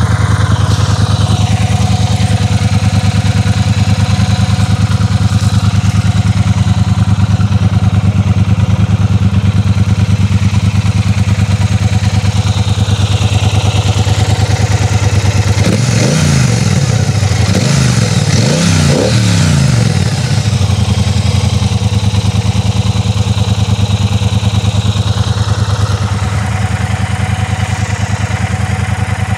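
2023 Triumph Speedmaster's 1200 cc parallel-twin engine idling through its stock exhaust, with a few quick throttle blips a little past halfway that rise and fall in pitch before it settles back to a steady idle.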